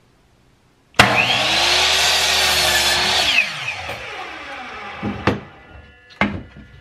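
Ryobi compound miter saw starting suddenly about a second in and its blade cutting through a wooden 1x6 board for about two seconds, then the motor switching off and the blade winding down with a falling whine. Two short knocks near the end.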